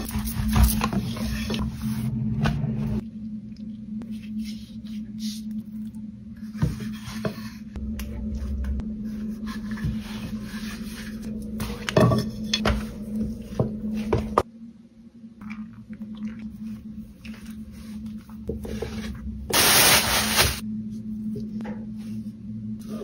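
Hands and a wooden rolling pin working thin pastry dough on a silicone mat, with short scrapes and rubs over a steady low hum. A loud rushing noise lasts about a second near the end.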